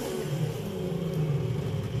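Electric drive motor of an old quad ATV converted to electric, humming steadily as it drives slowly along a dirt track.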